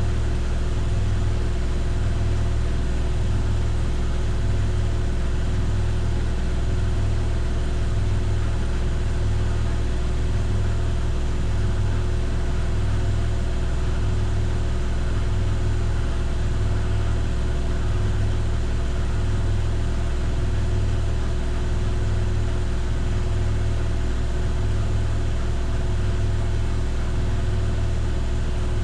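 Miele PW6055 professional washing machine in its final spin at 1400 rpm, running at a steady speed with a constant low hum and a slow, regular throb.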